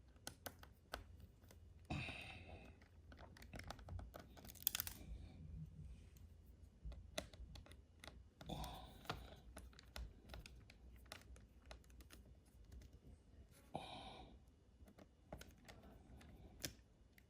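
Faint, irregular small clicks and taps of a screwdriver and screws being worked out of a laptop's LCD panel frame, with a few brief soft rustles.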